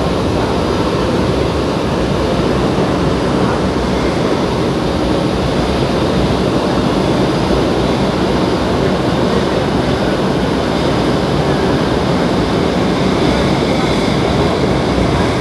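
Fleet F metro train running at speed, heard from inside the car by the door: a steady rumble of wheels on the rails and running gear that holds without a break.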